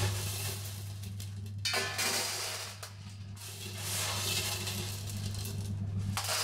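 LECA clay pebbles rattling and clattering against a ceramic sink and a stainless steel colander as they are scooped by hand, in bursts, the longest in the second half, over background music.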